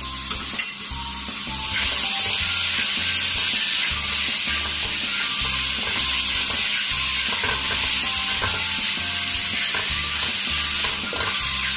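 Onion, tomato and green chilli masala with black olives sizzling in hot oil in a metal pot, stirred with a slotted spatula. A steady frying hiss that grows louder about two seconds in.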